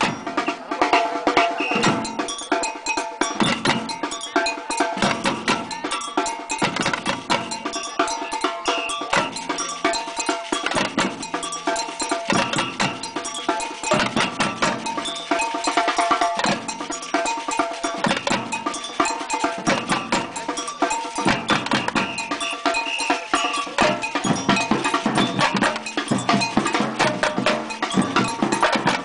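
Batucada samba percussion ensemble playing a dense, driving groove of snare drums and cowbell, over deep bass drum strokes that come about every two seconds.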